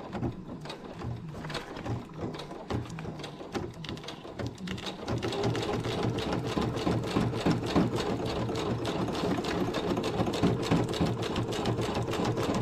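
Domestic electric sewing machine stitching through fabric. It goes slow and uneven for the first few seconds, then runs steadily and louder from about five seconds in.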